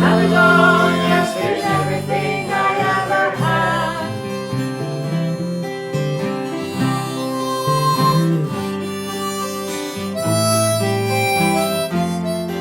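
Instrumental break in an Irish/Scottish-style folk song: a harmonica plays the melody in sustained notes over a strummed acoustic guitar.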